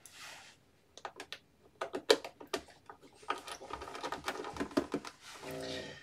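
Hand screwdriver driving small screws into the plastic back cover of an all-in-one PC: a run of small irregular clicks and taps, with a short pitched hum near the end.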